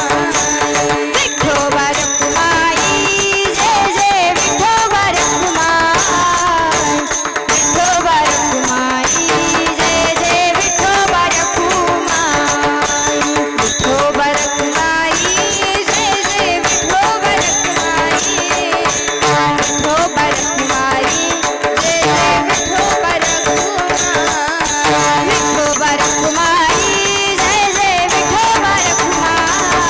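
Marathi devotional bhajan music: a wavering melody over steady held notes, with dense, rapid percussion that includes jingling small cymbals.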